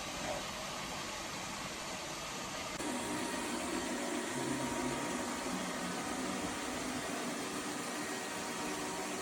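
Robot vacuum cleaner running with a steady, hiss-like motor and suction noise; about three seconds in it suddenly grows louder and brighter.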